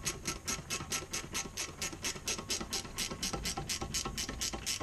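Ratchet wrench clicking in a fast, even rhythm, about eight clicks a second, as it runs in a brake caliper slide bolt.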